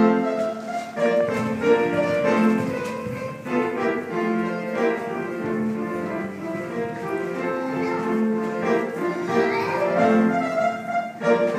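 Classical music with piano and strings playing at a steady level, the kind of accompaniment used for ballet class exercises.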